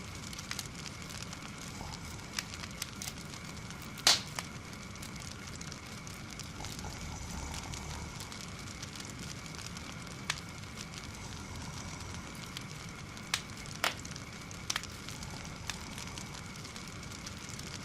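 Fireplace fire crackling: a soft continuous crackle with scattered sharp pops, the loudest about four seconds in and several more in the last third.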